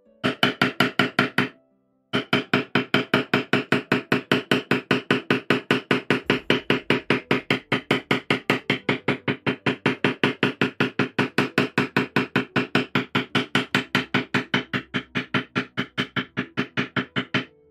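Poly mallet rapidly striking a leather tooling stamp into leather on a stone slab: an even run of sharp knocks, about five a second, with a brief pause about a second and a half in.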